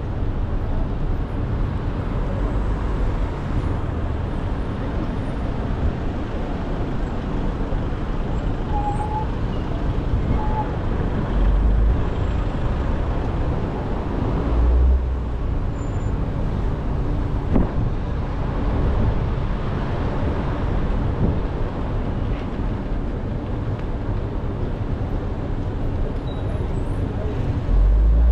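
Road traffic noise heard from a car driving through a city: a steady rumble of tyres and engines, with a few heavier low rumbles swelling up, the last near the end.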